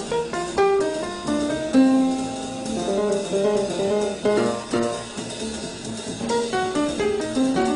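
Up-tempo bebop jazz recording: an instrumental group plays quick runs of single notes, several a second.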